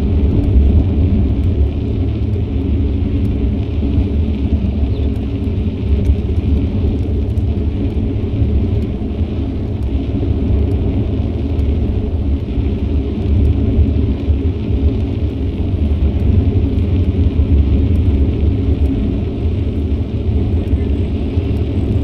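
Wind rumbling over an action camera's microphone while cycling, with road noise mixed in; a steady low rumble that does not let up.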